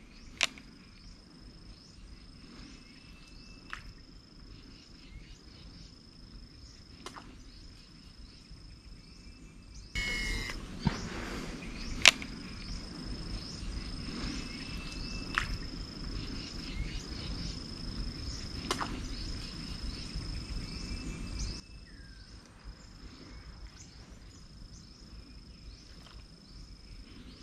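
Insects trilling in short high phrases, one after another, with a sharp click every three to four seconds. A louder rushing noise comes in suddenly about ten seconds in and cuts off about twenty-one seconds in.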